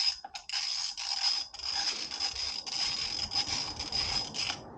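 A tool undoing the injector cover's 5 mm Allen bolts: a steady rasping whir with a thin high tone in it. It breaks off briefly a few times and stops shortly before the end.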